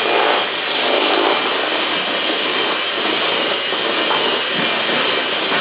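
A small electric kitchen appliance motor running steadily with a loud whirring noise.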